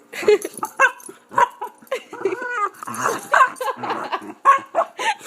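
Pet dogs playing, making a quick string of short, pitched noises one after another, some rising and falling in pitch, with rougher noisy ones in between.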